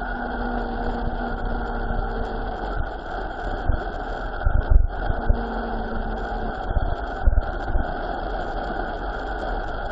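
Steady rush of wind and tyre noise on a fast mountain-bike descent, with a faint steady hum and several low thumps of wind buffeting the microphone from about four to five seconds in and again near seven seconds.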